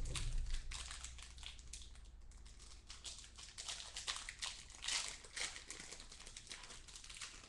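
Trading-card pack wrapper crinkling and tearing as it is opened by hand, in irregular crackles that are loudest about five seconds in.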